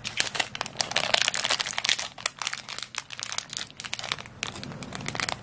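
Thin clear plastic zip bag crinkling and rustling as it is handled and pulled open, with a dense run of small crackles that thins out toward the end.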